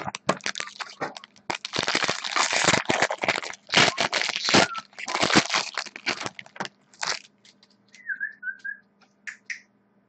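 Clear plastic shrink wrap being torn off a sealed box of baseball cards and crumpled in the hands: dense crinkling and crackling that thins out after about seven seconds, with a brief high squeak about eight seconds in.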